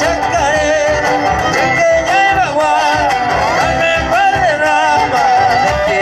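Live folk band playing through a PA system: acoustic guitars, violins and an accordion over a steady low beat, with a wavering lead melody.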